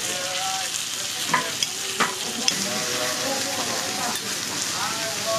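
Beef steaks and garlic slices sizzling steadily on a teppanyaki steel griddle. Four sharp clicks come between about one and two and a half seconds in.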